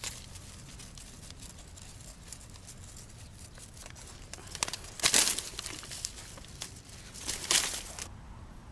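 Close rustling and crinkling handling noise in two short bursts, one about five seconds in and one near the end, with a few faint clicks over a low steady background.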